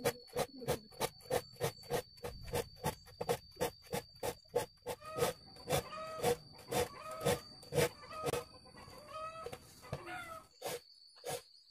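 Metal file rasping back and forth across hand saw teeth in a quick steady rhythm, about four strokes a second, each stroke with a short squeal. The filing sharpens the saw's worn teeth. It thins to a few last strokes near the end.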